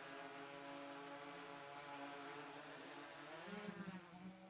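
DJI Air 3S quadcopter in flight, its propellers giving a faint, steady buzzing whine. The pitch wavers as it is steered and swells briefly about three and a half seconds in.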